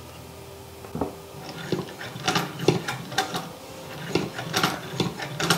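A 1930s Singer hand-crank sewing machine being cranked slowly and stitching through fabric without jamming. Its mechanism clicks at about two to three clicks a second, starting about a second in.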